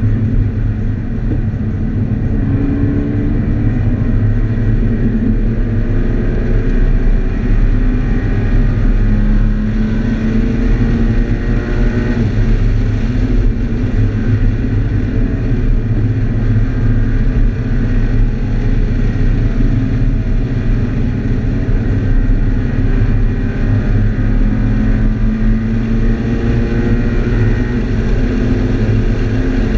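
2013 Scion FR-S's flat-four engine heard from inside the cabin at track pace, its pitch climbing and dropping again and again. A steady low road rumble runs underneath.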